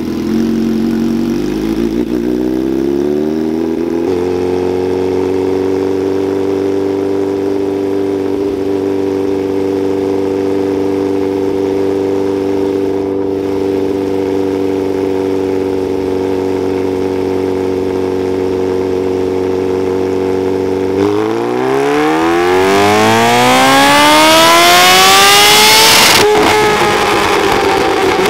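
Kawasaki Ninja H2's supercharged inline-four engine running on a motorcycle dyno. Its pitch rises and then holds steady at a constant speed. About 21 s in it opens up into a full-throttle pull, rising steeply to a loud peak. It cuts at about 26 s, winds down briefly and starts rising again at the very end.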